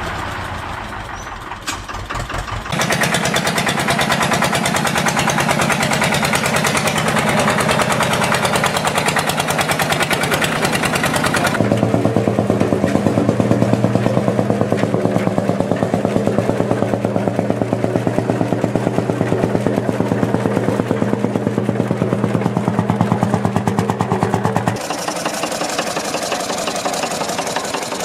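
Engine sound running steadily with a fast, even pulse, starting about three seconds in. It shifts to a deeper running note about twelve seconds in and stops a few seconds before the end.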